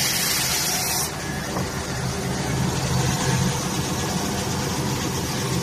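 Metal sanding machine running with a steady hum. A loud high hiss over it stops about a second in.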